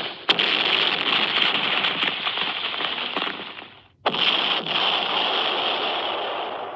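Cartoon sound effect of dense, rapid crackling, in two bursts of three to four seconds each that start abruptly and fade out.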